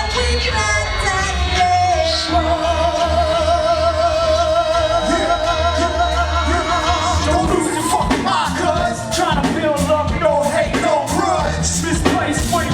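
Loud music with a heavy bass beat and singing: a long wavering held note, then busier vocals from about eight seconds in.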